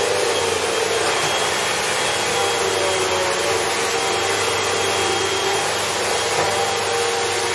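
Bagless upright vacuum cleaner running steadily at full power as it is pushed back and forth, with an even whooshing motor-and-airflow noise.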